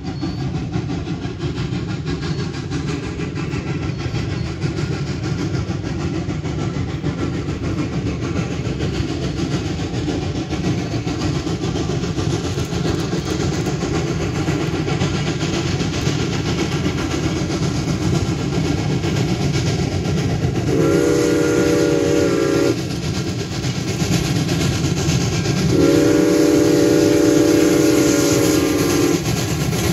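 A moving train heard from on board: a steady rumble of the cars rolling over the rails, with the locomotive's chime signal sounding a multi-note chord two-thirds of the way through, once briefly and then a longer blast a few seconds later.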